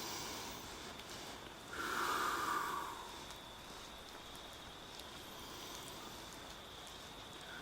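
A man's slow audible breath, one breath about two seconds in lasting about a second, over a faint steady hiss.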